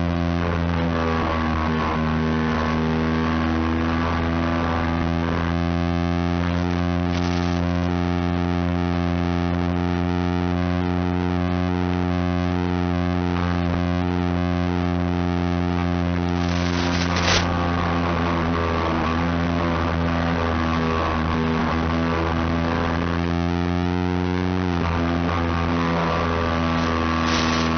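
Electric motor and propeller of an FPV radio-controlled airplane running steadily as a continuous droning tone. Its pitch drops slightly about 25 seconds in, and there is a short click about two-thirds of the way through.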